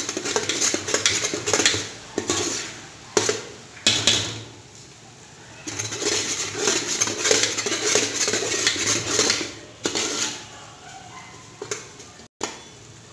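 Metal spoon stirring and scraping semolina in hot ghee around the inside of a metal pot as it is roasted, with sharp clicks where the spoon knocks the pot. The scraping comes in two long spells, pausing about four seconds in and easing off near the end.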